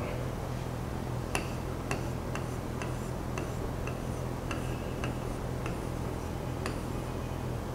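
Regular ticking, about two ticks a second, over a steady low hum.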